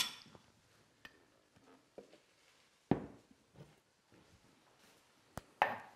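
A few scattered clicks and knocks from a salt canister and spoon being handled, with a quiet room between them; the loudest knocks come about three seconds in and near the end.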